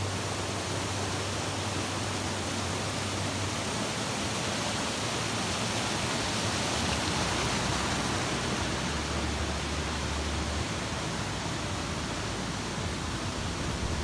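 Steady rush of a small mountain stream cascading over rocks.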